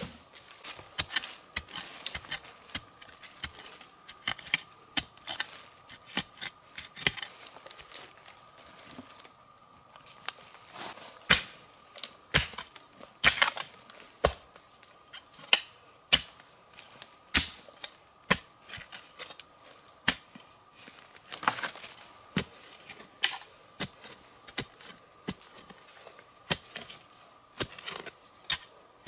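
Irregular sharp knocks and taps, roughly one or two a second with some much louder strikes, over a faint steady high tone.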